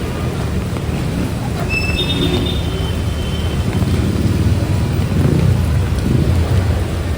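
Road traffic rumbling steadily through heavy rain, with a brief high-pitched squeal about two seconds in.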